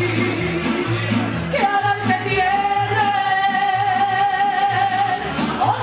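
Live female singing with a mariachi band: guitarrón bass pulsing under strummed guitars. Through the middle the singer holds one long note with vibrato.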